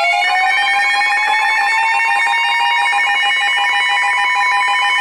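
Electronic emergency-alert attention tone before a new weather warning. A steady pitch that slides up slightly at its start and then holds, layered with rapidly pulsing higher beeps.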